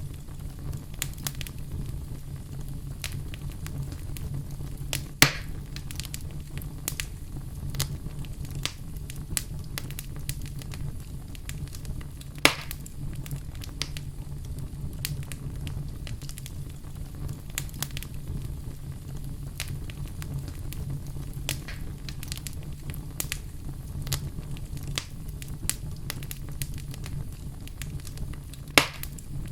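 Fireplace fire crackling over a steady low rumble, with frequent small crackles and three louder pops: about 5 seconds in, about 12 seconds in, and near the end.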